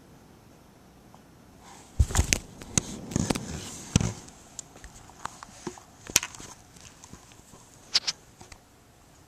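Handling noise: knocks, clicks and rustling against the camera as it is moved, loudest about two to four seconds in, with single sharp taps near six and eight seconds.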